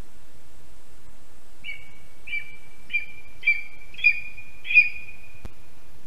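Lesser spotted eagle calling: a series of six short, high yelping notes, about one every 0.6 s, each louder than the last. A single sharp click follows near the end.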